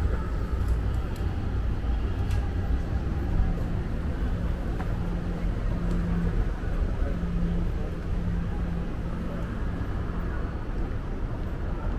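Busy city shopping-street ambience: a steady low rumble of traffic with the murmur of passers-by' voices, and a low steady hum through the middle.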